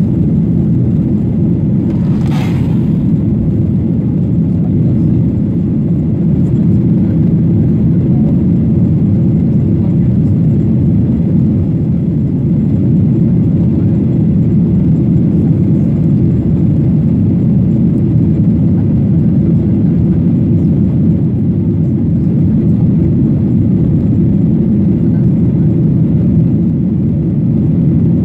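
Steady, loud low rumble of a Boeing 737-800 heard inside the cabin at takeoff, its CFM56-7B engines at takeoff thrust through the end of the takeoff roll and the initial climb. A brief rustle about two seconds in.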